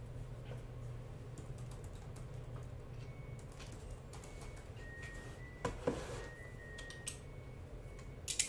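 Sparse light clicks and taps from hands handling cardboard trading-card boxes, with a few louder knocks about two-thirds of the way in and just before the end, over a low steady hum.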